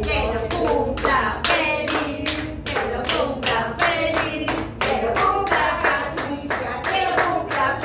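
A small group of women singing a birthday song together while clapping along in time, the claps coming several times a second.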